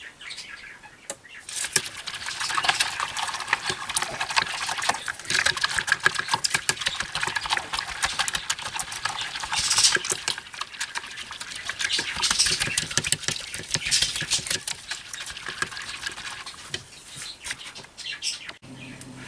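A plastic spatula stirring and scraping a stainless steel pot of chocolate pudding mixture heating on low, with irregular clicks and a soft liquid hiss. It is kept moving so the pudding doesn't scorch on the bottom while it thickens.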